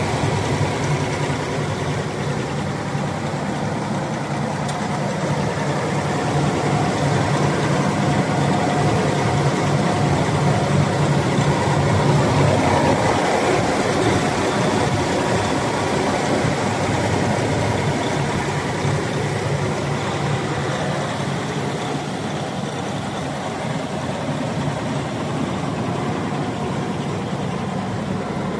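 Rostselmash 460 tractor's diesel engine idling steadily, heard close to the engine.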